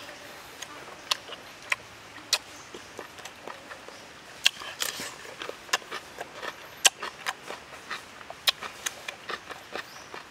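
Close-up eating of grilled pork sate and cucumber: chewing with irregular wet lip-smacking clicks, one or two a second.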